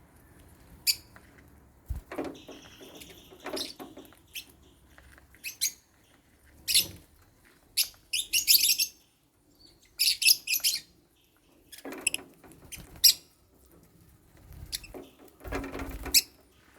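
African lovebirds chirping: sharp, high-pitched calls in irregular bursts, with some lower rustling and knocking sounds between them.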